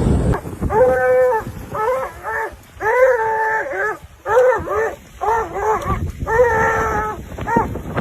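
An animal whining in a run of high cries, each rising and falling in pitch, about one a second.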